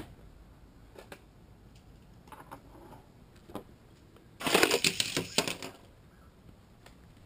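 Handling noise from plastic toy-track parts and the camera: a few scattered sharp clicks, then a burst of rapid plastic clattering about four and a half seconds in that lasts over a second.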